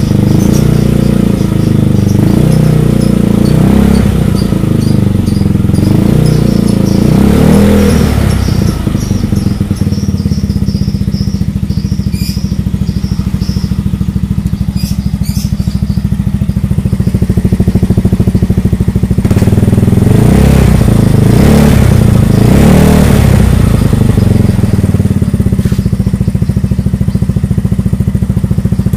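A 2005 Yamaha Nouvo Z scooter's single-cylinder four-stroke engine running through an R9 Misano aftermarket slip-on silencer. It idles steadily, and the revs are raised a few times, first about eight seconds in and again in the second half. The exhaust note is bassy and not very noisy.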